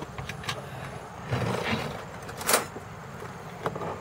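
A few light clicks and knocks, with a brief rustle, from a jar and utensils being handled on a table; the loudest is one sharp click about two and a half seconds in. A steady low rumble runs underneath.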